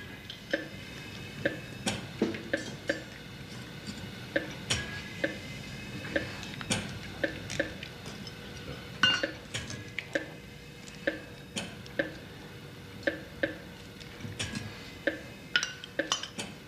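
Intensive-care heart monitor beeping with the heartbeat: short clicks at about two a second, unevenly spaced, with a high tone in between, as the patient's weak pulse falters.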